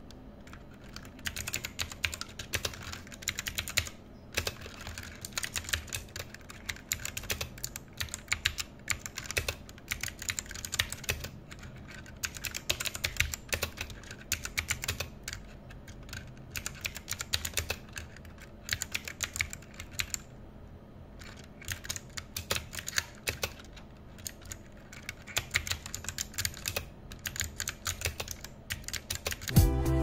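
Typing on a Tsunami Outemu MK-61 60% mechanical keyboard with Outemu Blue switches: a quick, steady run of clicky keystrokes, with brief lulls about four and twenty seconds in.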